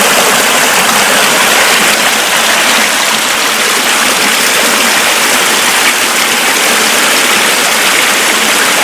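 Mountain river swollen with snowmelt, rushing water running steadily with a dense, even hiss.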